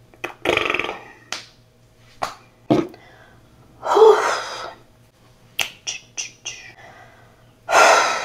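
A woman blowing out breath and sighing three times with her voice in it, stuck for her words, with several sharp finger snaps between the sighs.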